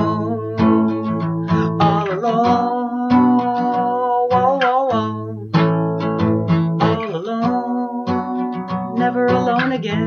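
Acoustic guitar strummed in chords, with a man singing long wavering notes over it and no clear words.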